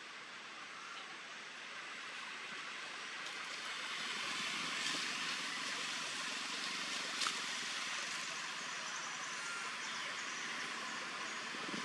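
Steady outdoor background noise, a hiss-like haze that swells about four seconds in. A faint low rumble runs under it for a few seconds, with a single sharp click about seven seconds in.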